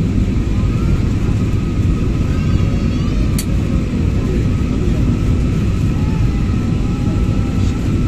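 Steady cabin roar of a jet airliner climbing after takeoff, heard inside the cabin: engine and airflow noise heaviest in the low end, with a faint steady whine. A single sharp click about three and a half seconds in.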